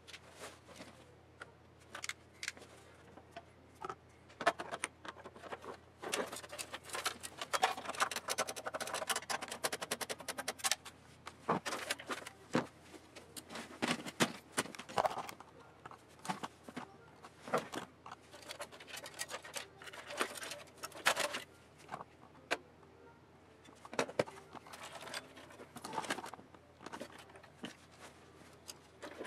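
Irregular clicks, rattles and rustling from cables and metal parts being handled inside an open computer case, busiest in a long flurry in the first half.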